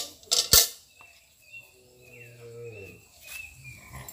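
A knock and a short splash of water from a plastic mug into a steel pail, the loudest sound. About two seconds in, a cow lows once, falling in pitch, while small birds chirp.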